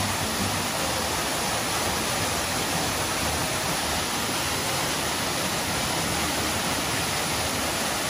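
Waterfall's water rushing steadily into the pool below, an even, unbroken hiss.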